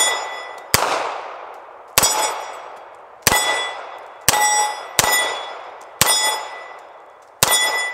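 Star BM9 9mm pistol firing seven shots about a second apart, the last one near the end. Each shot is followed by the ring of steel plate targets, dying away before the next.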